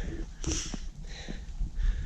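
A short sniff about half a second in, a hiker's breath between sentences.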